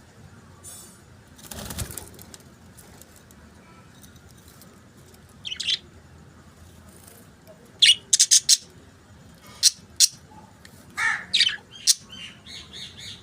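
Budgerigars chirping: short, sharp high calls, scattered at first, then several in quick succession near the end. A short rustling burst comes about two seconds in.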